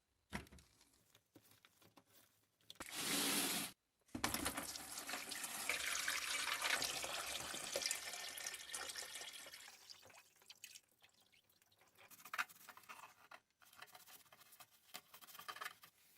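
Water running and splashing for about six seconds, as when parts are washed under a tap, after a short hiss about three seconds in. Scattered clicks and light rattles follow near the end.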